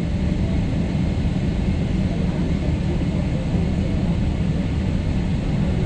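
Steady low rumble heard inside the cabin of a Boeing 777-300ER as its General Electric GE90 engines start up.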